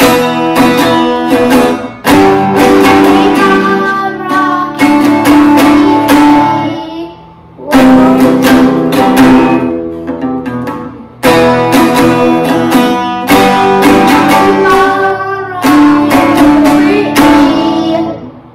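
Acoustic guitar strummed in chords, in phrases that pause briefly about 7.5 and 11 seconds in and stop near the end.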